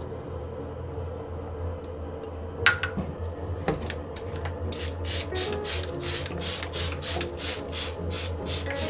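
A sponge scrubbing a ceramic washbasin in quick, regular back-and-forth strokes, about three a second, starting about halfway through. Before that, a single sharp knock and a few soft handling sounds.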